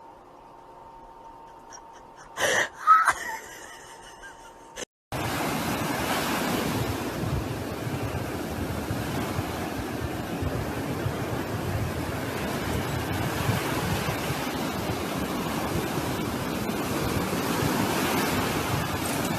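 A short, loud sound about two and a half seconds in, then a steady rushing noise without tone, of the kind wind or surf makes.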